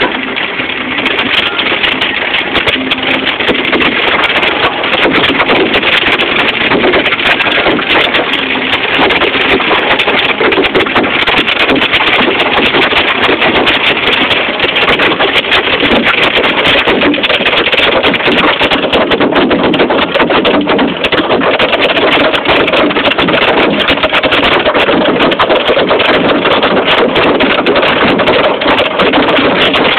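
Hailstones pelting a car's roof and windshield in a dense, constant clatter of countless hits, heard from inside the car.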